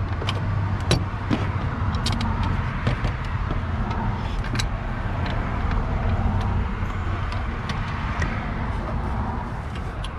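Scattered sharp metallic clicks and clinks of hand tools and a serpentine belt being worked over the accessory-drive pulleys and tensioner of a Ford E350 van, over a steady low rumble.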